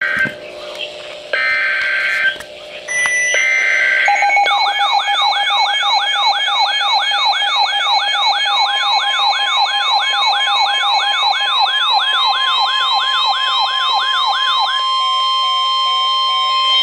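Electronic emergency alert tones. A few short buzzy bursts come first. Then a warbling siren-like tone sweeps up and down about three times a second over steady tones, and near the end it gives way to a steady tone.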